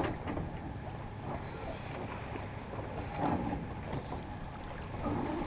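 Wind buffeting the microphone as a steady low rumble, with water washing along the hull of a sailboat under sail.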